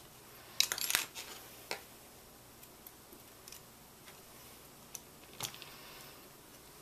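Small metal clicks and rattles of hand tools on hardware: parallel-jaw pliers holding a locking nut while a small screw is turned into it. A cluster of clicks comes about a second in, a single click shortly after, and a few more about five seconds in.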